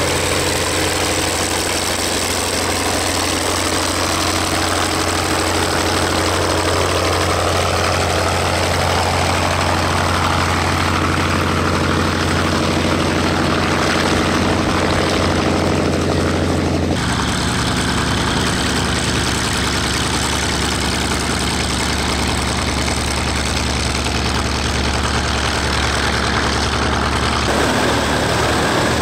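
Hawker Sea Fury's 18-cylinder radial engine running steadily at low power with the propeller turning. Its deep note changes abruptly about two-thirds of the way in and again near the end.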